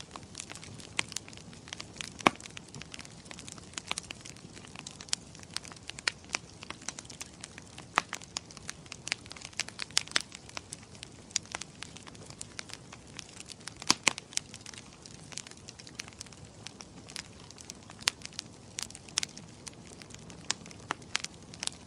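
Wood fire in a fireplace crackling, with many irregular sharp pops over a soft hiss. A couple of louder pops stand out, about two seconds in and again past the middle.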